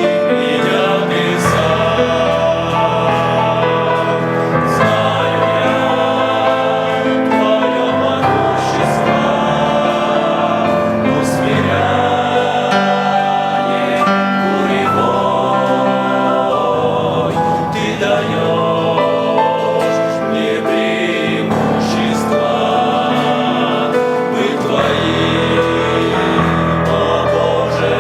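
Men's vocal ensemble singing a hymn in several-part harmony, with long held chords.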